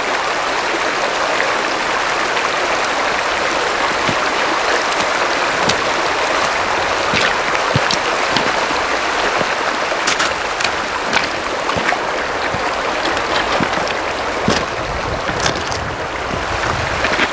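Shallow, rocky stream rushing steadily over stones. Scattered sharp clicks and knocks run through it as boots land on the stones while wading across.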